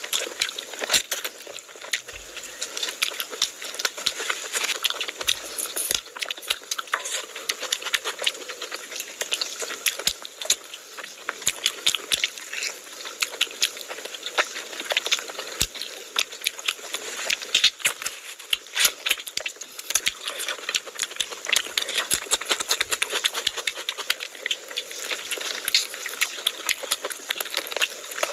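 Close-miked wet chewing, lip-smacking and sucking as meat in thick curry is bitten and eaten off the bone by hand, a dense run of small clicks and crackles.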